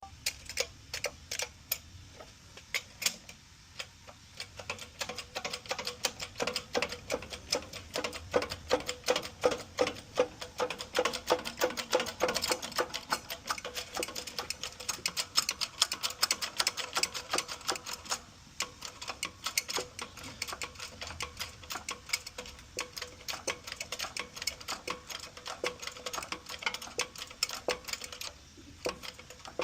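Rapid, irregular clicking and ticking from a worn wheel bearing as the wheel turns, the weird sound the customer noticed. The clicking speeds up and thins out at times, with a faint steady hum under it.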